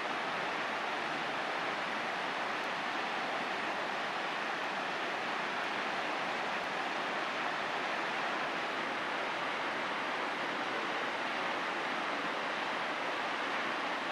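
Steady, unbroken rush of a waterfall, falling water with no change in level.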